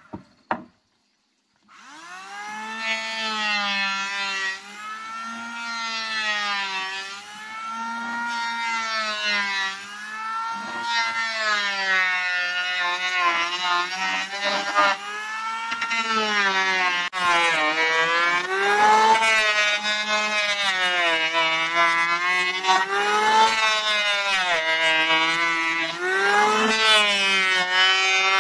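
Electric hand planer motor whining as it is pushed through wood, its pitch dipping and recovering every couple of seconds as each pass loads the blades.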